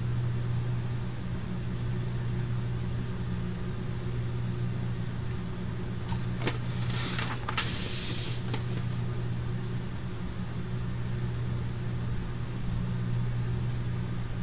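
A steady low machine hum, with a click about six and a half seconds in followed by a short hiss lasting about a second and a half.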